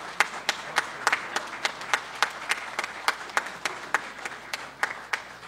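Audience applauding, with single sharp claps standing out at a steady pace of about three a second. The claps thin out toward the end.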